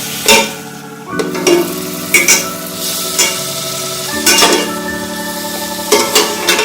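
Chicken pieces frying in a little ghee in a kadai, stirred with a spatula: a steady sizzle broken by a sharp scrape or clink against the pan roughly every second.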